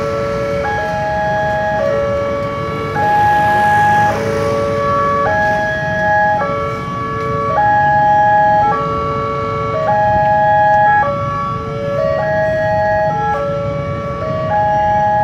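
Indonesian railway level-crossing alarm sounding through its loudspeaker: an electronic melody of short stepped tones that repeats over and over, warning that a train is coming and the barriers are down.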